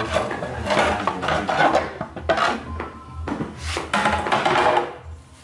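A motorcycle's plastic front mudguard being handled against the metal front fork legs: a run of scraping, rubbing and knocking sounds, the longest about a second in and again near the end.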